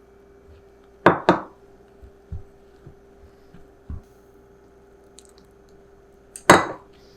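Kitchenware being handled and set down on a counter. There are two sharp clacks about a second in, a few soft knocks, and another loud clack near the end, over a faint steady hum.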